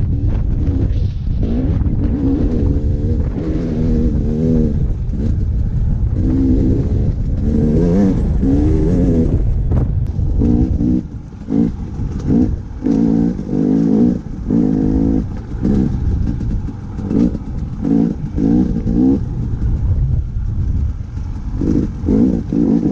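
Dirt bike engine revving as it is ridden, its pitch rising and falling with the throttle. From about halfway, the throttle is opened and shut in quick repeated blips. A low wind rumble on the microphone runs underneath.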